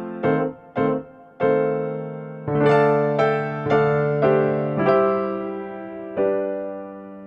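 Background music: electric piano playing a slow phrase of struck chords, each note ringing and fading, the last chord left to die away.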